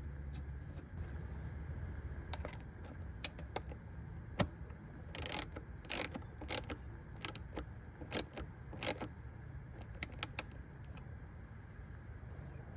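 Irregular clicks and short metallic rattles of small parts and tools being handled, most of them in the middle of the stretch, over a low steady hum.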